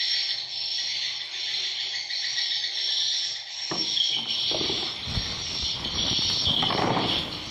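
Many swiftlets twittering together inside a swiftlet house, a dense, steady high-pitched chatter. About halfway in, a lower rustling with a few soft knocks joins the chatter.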